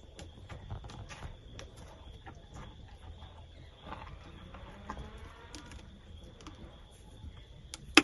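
A horse biting and chewing a carrot held out by hand: scattered soft crunching clicks, with one sharp click near the end. Insects keep up a steady high drone in the background.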